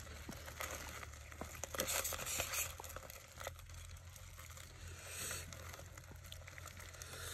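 Fingers picking apart dung beetles and a spoon working through chilli paste in a mortar: soft crackling and rustling with scattered small clicks.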